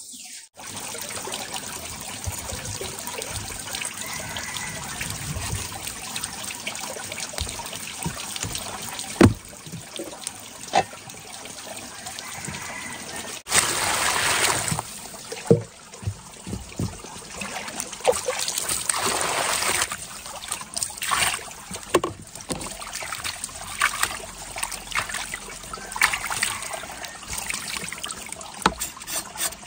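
Water running and trickling, then pouring hard into a plastic basin over a slab of smoked pork. This is followed by irregular splashing and dripping as the meat is moved about and lifted out of the water.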